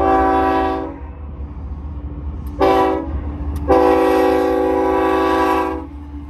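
Diesel freight locomotive's air horn sounding three chords: a blast, a short toot, then a long blast of about two seconds, over a steady low rumble.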